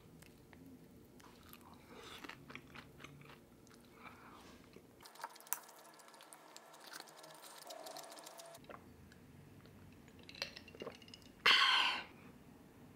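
Close-up chewing and crunching of crispy vegetable pancake and mixed rice with vegetables, with small clicks of chopsticks against the plate and bowl; a short louder sound comes about a second and a half before the end.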